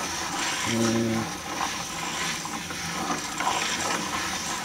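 Wooden cycloid drawing machine turned by hand: its gears mesh and the turntable rotates, with the pen dragging over the paper, giving a steady rustling, scraping noise.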